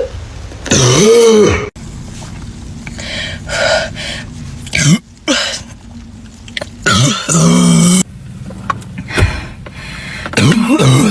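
Several short burps and throat-clearing sounds from girls, one after another with abrupt cuts between them; the loudest come about a second in and around seven to eight seconds.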